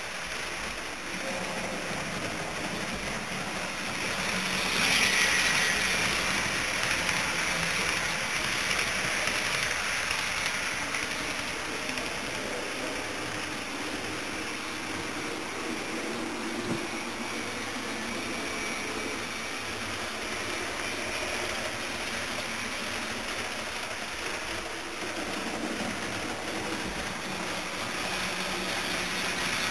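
HO-gauge model train running on layout track: a steady rolling and running noise of the locomotive and coaches on the rails. It gets louder about five seconds in and again near the end, as the train comes close.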